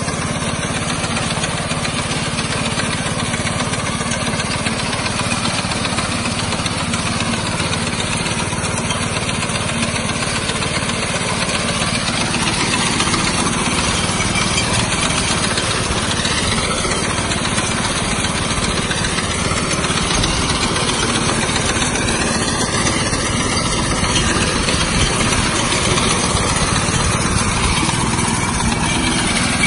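Walk-behind rice reaper's 7 hp air-cooled four-stroke petrol engine running steadily under load as its reciprocating cutter bar mows through standing rice, a little louder from about midway.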